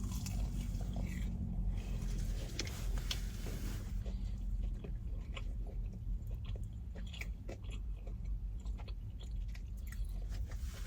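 Close-miked chewing and biting of food, with many small mouth clicks.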